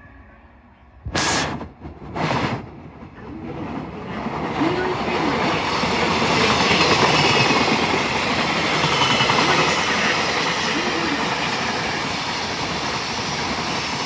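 Shonan-Shinjuku Line electric commuter train arriving at the platform. It gives two short, loud horn blasts about a second apart, then its wheels and motors rumble and clatter louder as it runs in alongside, with light wheel squeal.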